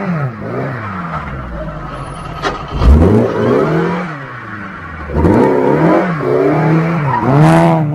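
Opel Manta rally car's engine revving up and down repeatedly through gear changes as it works around a tight corner at low speed. There is a loud low thump about three seconds in.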